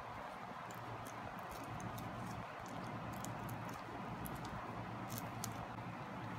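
Hands handling a doll's cloth outfit: soft fabric rustling with scattered small, sharp clicks, over a steady hiss.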